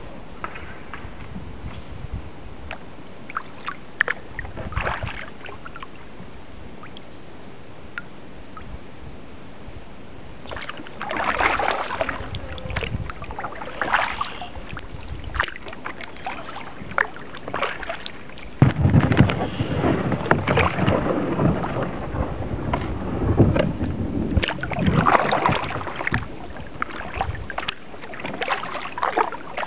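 Kayak paddle dipping and splashing in water in irregular strokes. They are sparse at first and come in heavier groups in the second half, with a low rumble under them.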